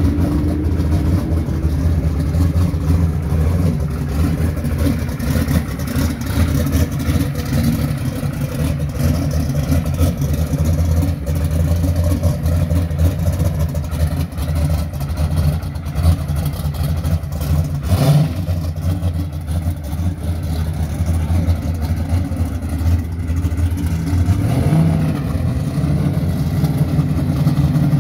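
First-generation Chevrolet Camaro drag car's V8 engine idling steadily as the car rolls toward the line. It gives a short blip of the throttle about two-thirds of the way through and revs up again near the end.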